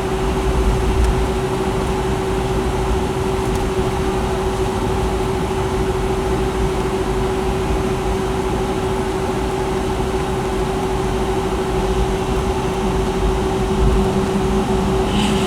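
Steady cabin noise inside a Boeing 757-200 with Pratt & Whitney PW2000 engines running: an even hum with one constant tone over a low rumble.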